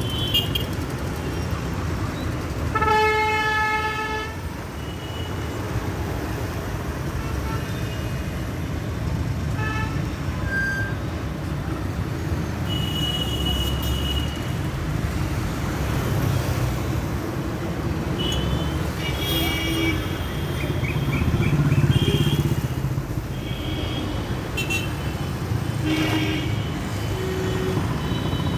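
Busy city road traffic: a steady rumble of engines and tyres, with vehicle horns honking. One long, loud horn blast comes about three seconds in, followed later by several short, higher-pitched beeps from other vehicles.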